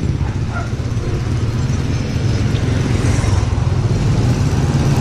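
Motorcycle engine of a Philippine motorcycle-sidecar tricycle running steadily close by.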